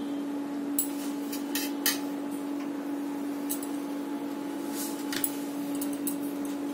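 A steady low hum, with a handful of short, sharp clicks and light clinks scattered through it.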